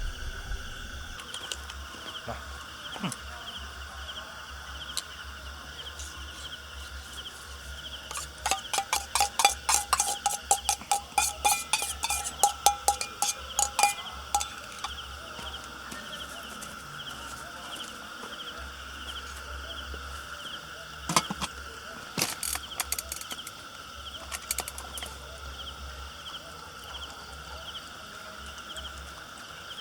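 Rural outdoor ambience with a steady pulsing insect drone. About eight seconds in, an animal gives a rapid run of sharp repeated calls lasting several seconds. A shorter burst of the same comes later.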